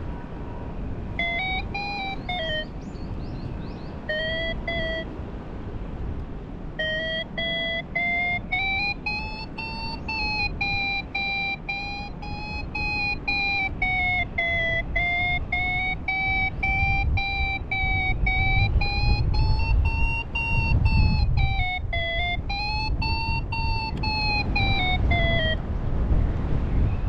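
A paragliding variometer sounds its climb tone, starting about a second in with two short stretches and then running almost unbroken until near the end, its pitch slowly wavering up and down as the climb rate changes in ridge lift. Wind buffets the microphone underneath.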